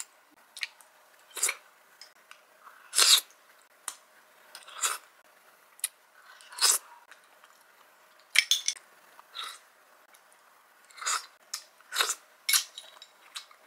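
Close-miked eating sounds: a spoon scooping fruit salad from a small glass bowl and wet chewing, in about fifteen short, irregular bursts.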